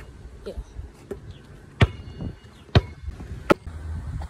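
Basketball dribbled on asphalt: three sharp bounces a little under a second apart, the last slightly quicker.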